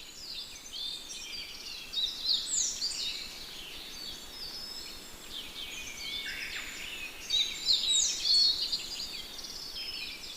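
Birdsong: several birds chirping and singing together, a dense chorus of quick high notes and downward-sweeping whistles, swelling louder about two seconds in and again near eight seconds.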